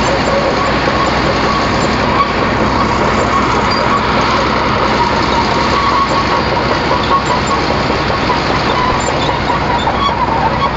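Excavator's diesel engine running steadily while the machine travels, a constant heavy rumble with a faint wavering tone above it.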